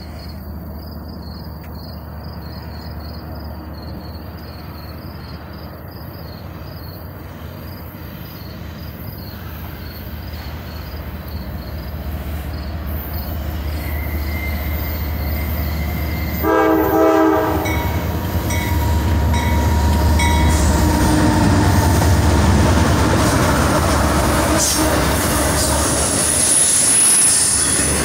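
CSX intermodal freight train approaching and passing. The diesel locomotives' low rumble grows steadily louder over crickets chirping in the first part. A little past halfway the locomotive gives one short horn blast, and then the locomotives and container cars pass close with loud rail noise and a high wheel squeal near the end.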